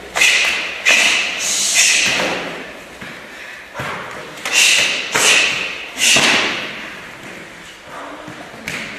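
Sharp slaps and thuds of karate kicks and blocks landing on arms, legs and gi cloth during a partner drill. There are about eight impacts in three quick groups, each ringing briefly in the large hall.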